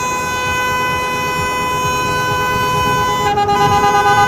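Car horns: one horn holds a long steady blast, then about three seconds in a different, lower-pitched horn takes over, pulsing rapidly.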